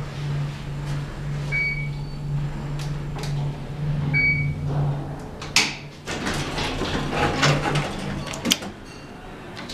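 Elevator car riding with a steady low hum, with a short electronic beep three times, about two and a half seconds apart. Just past halfway a sudden rush is followed by clicks and clatter as the car arrives and its sliding doors work; the hum stops near the end.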